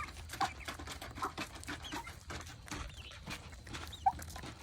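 Chickens clucking in short, scattered calls among many light clicks and rustles.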